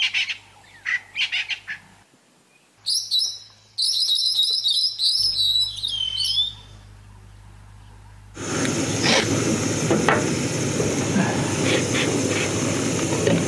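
Dawn bird chorus in the bush, one bird giving a fast run of high notes for about three seconds, over a faint steady low hum from a distant generator. About eight seconds in, a gas-cartridge camping stove burner starts, with a steady loud hiss.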